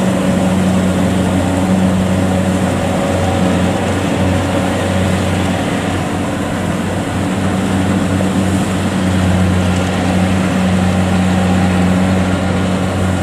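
Kubota DC70 rice combine harvester's diesel engine running steadily under load as the machine cuts rice and crawls on its tracks through deep, soft mud, a constant low drone.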